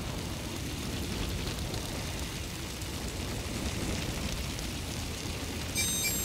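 A steady rumbling roar of noise, like a fire or explosion sound effect, with a brief high chiming tone of several pitches near the end.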